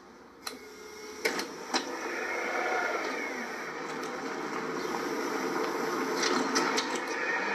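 Power wheelchair's electric drive motors whirring as the chair pulls away, growing louder, after a few sharp clicks in the first two seconds.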